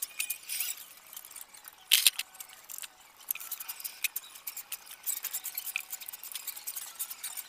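Rapid, irregular high-pitched clicks, clinks and squeaks of metal parts and tools being handled while a small scooter engine is fitted onto its mount. The sound is sped up into a chattering, with one louder clatter about two seconds in.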